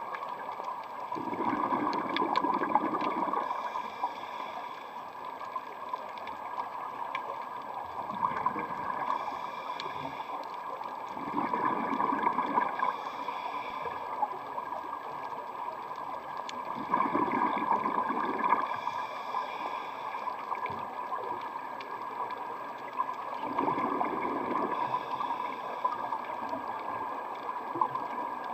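Scuba regulator breathing heard underwater: a rush of exhaled bubbles about every six seconds, each lasting a second or two, with a steady hiss of water between breaths.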